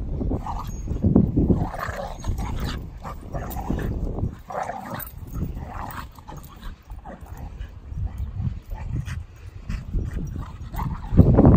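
Doberman and Staffordshire bull terrier play-fighting, with intermittent dog vocalisations over an uneven low rumble.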